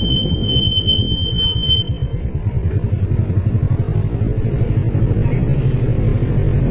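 Motorcycle engine running at low speed with road and wind rumble as the bike rides along. A steady high-pitched tone sounds over it and cuts off about two seconds in.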